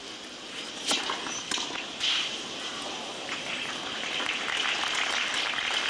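Two sharp tennis-ball strikes from rackets, about a second in and half a second apart, followed by stadium crowd noise that grows steadily louder.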